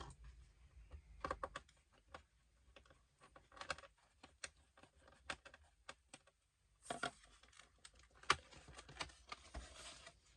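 Irregular small clicks and taps from a screwdriver and screws on the plastic bottom cover of a Dell Inspiron 5570 laptop as its cover screws are taken out, with a short pause a little past halfway and denser clicking and scraping after it.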